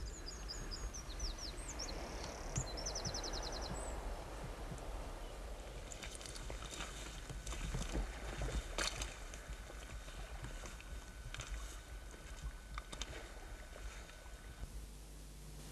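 Shoreline ambience: a steady hiss of wind and water, with a small bird's high chirps and a fast trill in the first few seconds and a few scattered clicks and knocks later.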